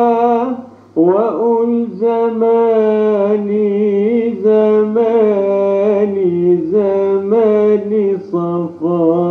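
Arabic song: a male voice sings a long, ornamented melody with bending held notes over accompaniment, with a brief pause about half a second in.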